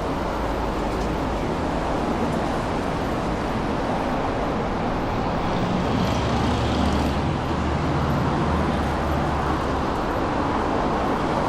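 City street traffic: a steady hum of road noise, with a low engine rumble that swells in the middle as a vehicle passes close.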